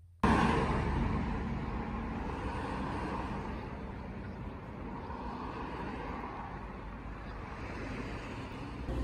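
Outdoor roadside ambience: steady road-traffic noise with a low hum, starting suddenly and loudest at the very start, then easing off a little.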